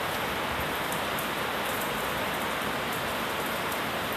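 Heavy rain pouring steadily, an even, dense hiss of drops on a flooded street.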